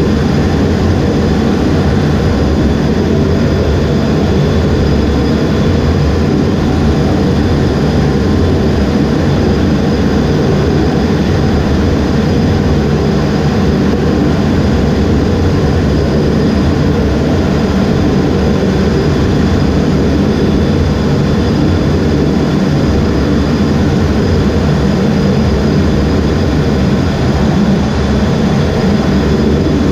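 Jet engines of an EA-18G Growler, its twin General Electric F414 turbofans, running steadily as heard from the cockpit on a carrier deck. The sound is a loud, unbroken deep rumble with a faint high whine above it.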